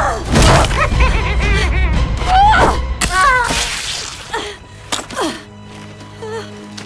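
Film soundtrack: music with several sudden hits and high, bending squeals in the first few seconds, settling after about five seconds into a low steady drone.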